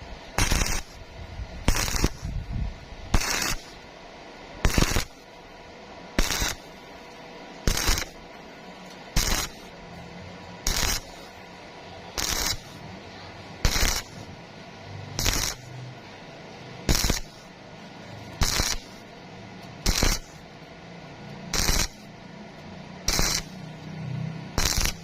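Stick-welding arc on thin square steel tubing, crackling in short bursts about every second and a half as the arc is struck and broken again and again, over a steady low hum.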